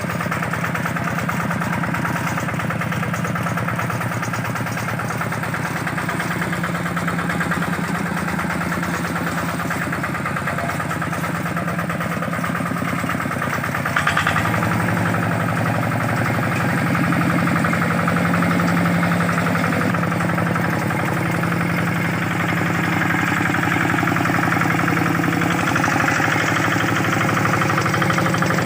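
Kubota RD65 single-cylinder diesel engine of a Quick G600 hand tractor running steadily. About halfway through there is a short louder jolt, and afterwards it runs slightly louder at a changed pitch.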